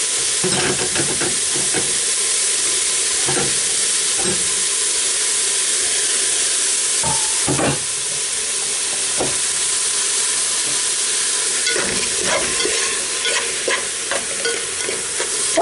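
A pot of sofrito (onion, bell peppers and carrots in oil) frying with a steady sizzle, with clams and mussels in their shells just added, and scattered short knocks and scrapes as the mix is stirred with a spoon.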